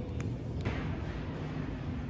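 A few crinkles of a plastic produce bag, then, about two-thirds of a second in, steady grocery-store background noise: a low hum under an even hiss.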